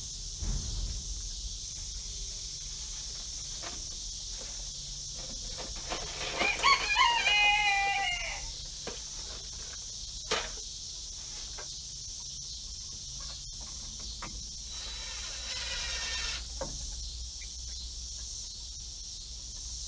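A rooster crowing once, about six seconds in, the call falling in pitch at its end; a fainter crow follows around fifteen seconds in. A single sharp knock sounds about ten seconds in, over a steady high hiss.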